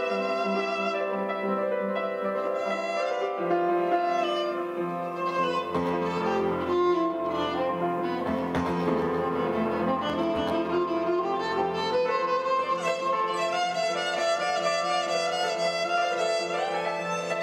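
Violin bowed in long, sustained and gliding notes, with piano accompanying in a violin-and-piano duet.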